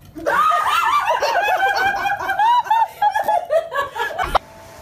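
High-pitched, hard laughter in quick repeated bursts, cutting off suddenly near the end.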